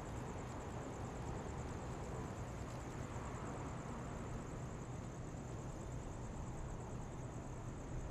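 Quiet city street ambience: a steady low hum of distant traffic with an even background hiss, and a thin, high-pitched rapidly pulsing whine above it.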